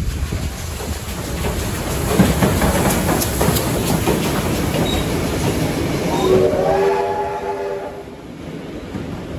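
Victorian Railways A2 class 4-6-0 steam locomotive 986 and its wooden carriages passing close by, with a rumble and clicking of wheels over rail joints that is loudest as the engine goes past. About six seconds in, a train whistle sounds for about two seconds.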